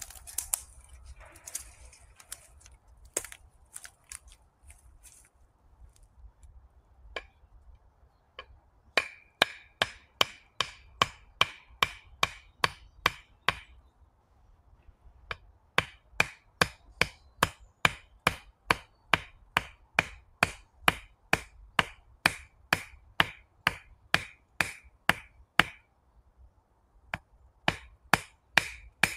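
A tool striking wood: a few scattered knocks, then from about nine seconds in a steady run of blows about two a second, pausing briefly twice.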